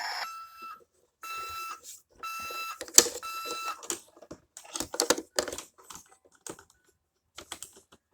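Toy garbage truck's electronic sound module beeping like a reversing alarm: four even, high beeps about a second apart. Then scattered plastic clicks and knocks as the toy is handled.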